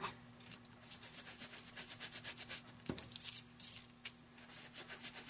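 A small sponge dabbing and rubbing ink onto the edges of die-cut paper: a faint, quick, irregular run of soft scuffs, with one slightly sharper tap about three seconds in.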